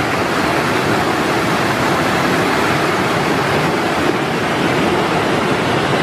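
Mountain stream water rushing down a narrow rocky cascade between boulders, a steady, even rush.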